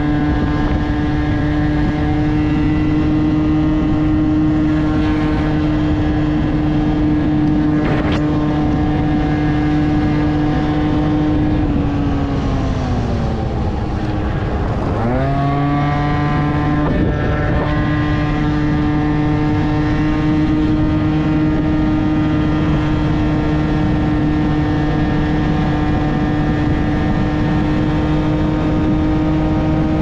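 Aprilia SR 50 scooter's 50 cc two-stroke engine through a LeoVince TT exhaust, held at steady high revs under way. About twelve seconds in, the revs fall away for a few seconds, then rise sharply back and hold steady again.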